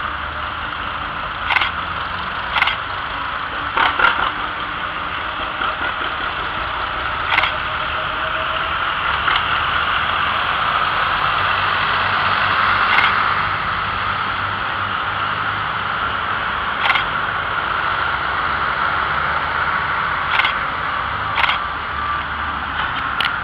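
Engines of a line of vintage farm tractors, a Farmall and John Deeres among them, running steadily at low speed as they drive past one after another. A few sharp clicks are heard on top.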